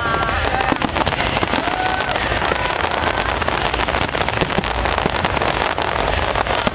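Fireworks going off in a dense, steady run of crackles and pops.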